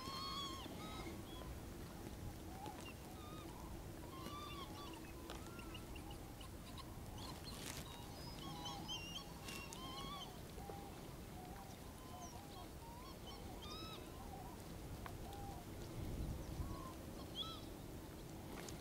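A flock of waterbirds calling: many short calls that rise and fall, some lower and some higher-pitched, overlapping throughout over a low steady hum.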